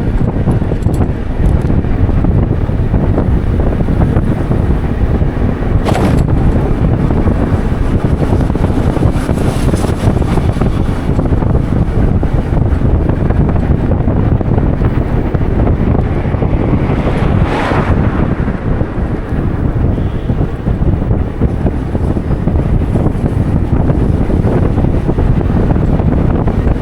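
Wind buffeting the microphone: a loud, steady low rumble, with two brief brighter whooshes, one about six seconds in and a longer one around seventeen seconds in.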